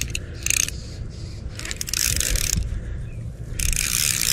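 Spinning reel being cranked in three spurts with whirring gears, reeling in a hooked fish: a short turn about half a second in, a longer one around two seconds, and another near the end.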